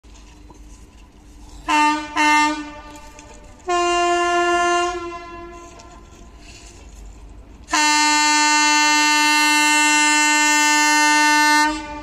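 Locomotive horn sounded as a warning to track workers to clear the line: two short blasts, then a blast of about a second, then one long blast of about four seconds.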